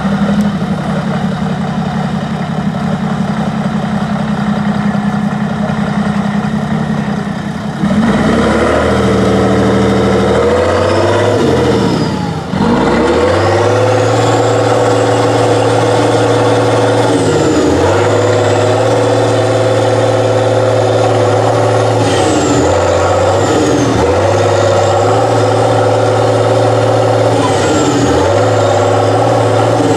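Diesel engine of a Praga 6x6 trial truck, running steadily at first, then revved hard from about 8 seconds in and held at high revs under load as the truck climbs. The revs dip briefly every couple of seconds, and a faint high whistle rises and falls with them.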